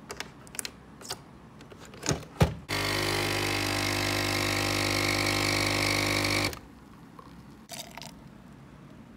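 A few clicks and two knocks of handling, then a small electric appliance runs with a steady, even hum for about four seconds, switching on and off abruptly.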